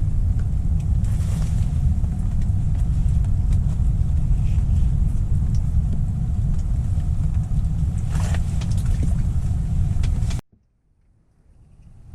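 Strong wind buffeting the microphone on open ice: a heavy, steady low rumble with a few scattered ticks. It cuts off abruptly near the end.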